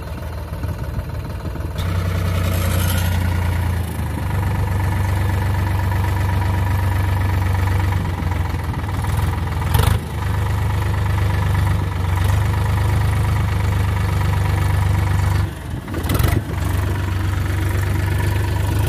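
Sonalika DI 47 RX tractor's diesel engine running under load as the tractor works through a ditch. It gets louder about two seconds in and drops out briefly twice near the end.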